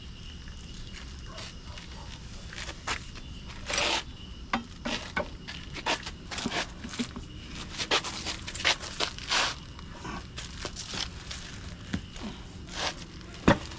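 A tire being worked onto a wheel by hand on a manual tire changer: irregular scrapes, clicks and knocks of metal tools against rubber and rim, busiest a few seconds in and again after the middle.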